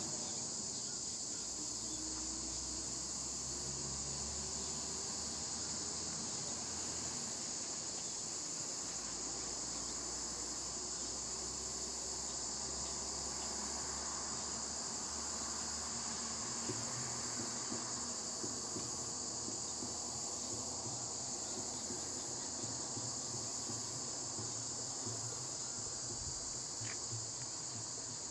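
A steady, high-pitched chorus of insects, with a fainter higher note pulsing roughly every second and a half above it and a low rumble underneath.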